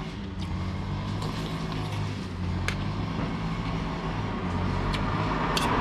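Motor vehicle engine running with a steady low hum, with a couple of light clicks.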